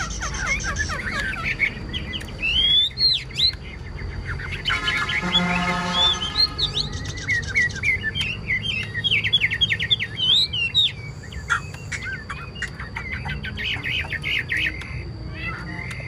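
Chinese hwamei singing: rapid runs of sharp notes mixed with loud, high whistles that swoop up and down. About five seconds in, a lower, drawn-out sound with a buzzy, many-toned quality lasts for about two seconds under the song.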